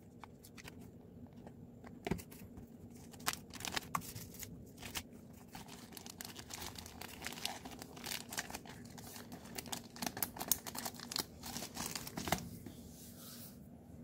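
Clear plastic zip bag crinkling and rustling as it is handled, with irregular sharp crackles.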